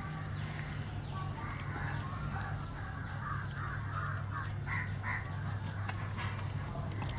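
Domestic chickens clucking in the background, a string of short calls over a steady low hum, with two slightly louder calls about five seconds in.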